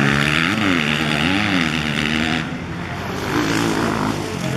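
Motocross bike engine revving hard through a corner, its pitch rising and falling with the throttle. It drops away after about two and a half seconds, and a fainter bike revs up and down near the end.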